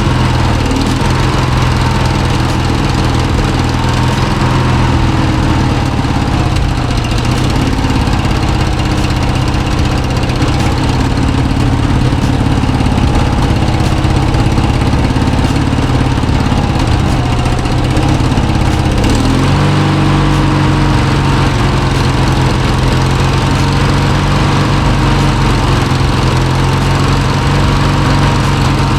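Old Craftsman riding lawn mower's 19.5 hp Briggs & Stratton engine running steadily just after a tune-up and oil change, running well. Its note shifts about two-thirds of the way through.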